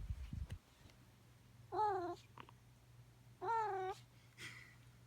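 Domestic cat giving two short, warbling chirp-like calls about a second and a half apart, the kind of noise a cat makes while playing. A brief low rumble comes just before them.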